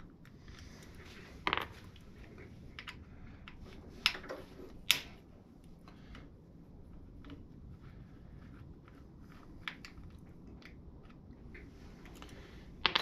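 Light scattered clicks and taps of an Allen key working stainless button-head screws out of a motorcycle clutch cover and the screws being handled, with a few sharper clicks in the first five seconds.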